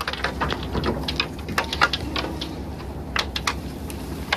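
Irregular sharp clicks and knocks of a fishing net and its floats running out over the boat's gunwale as the net is set, over the steady low hum of the boat's engine.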